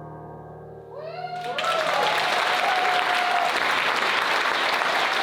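A final piano chord rings and fades, then audience applause breaks out about a second in and builds to full, steady clapping, with cheering whoops over it.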